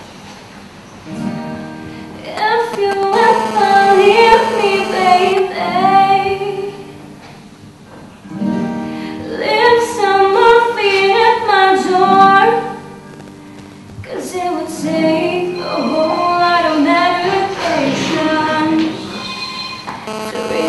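A young woman singing to her own acoustic guitar strumming, starting about a second in and going in three phrases with short pauses between them.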